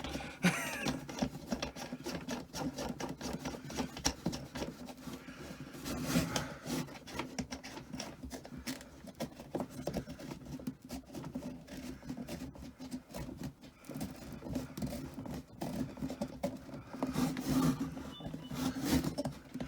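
Rubbing, scraping and small clicks of hands working behind a panel, threading and tightening the retaining nut on the back of a USB socket.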